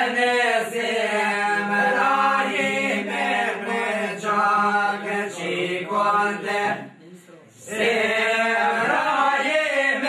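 Men singing a northern Albanian two-part (dyzanshe) polyphonic folk song: a moving melodic voice over a steady low held drone. The singing breaks off briefly about seven seconds in, then resumes.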